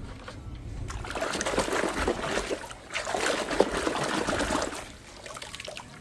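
Water running and splashing over toy cars as they are washed, heavier from about a second in and tailing off near the end.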